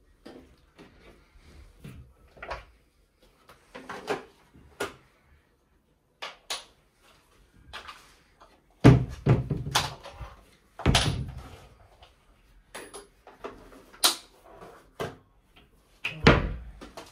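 Doors of an IKEA wardrobe being opened and closed by hand: a run of light clicks and knocks, with heavier thumps about nine, eleven and sixteen seconds in.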